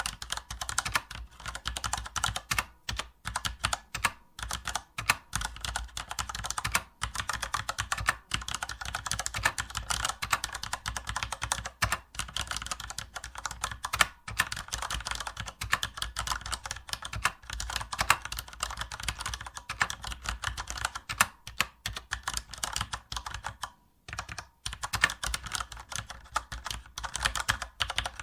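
Computer keyboard typing: rapid, continuous key clicks with brief pauses, one short break a little after halfway.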